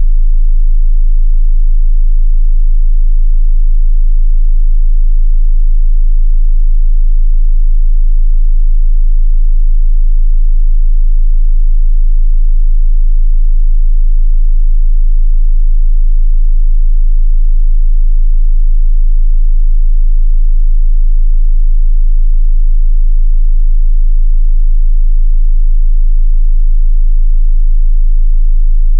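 A steady, loud 27 Hz sine wave test tone, a continuous deep sub-bass hum with no change in pitch or level, used to test how low a subwoofer reaches.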